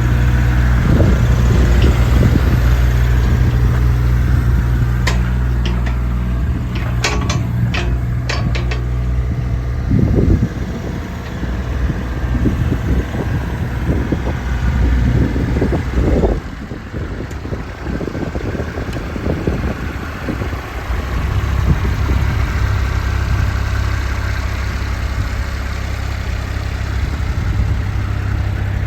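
JCB 8018 mini excavator's diesel engine running, with a few sharp metallic clinks about a quarter of the way in. Its note turns uneven and varies through the middle, then settles back to a steady hum.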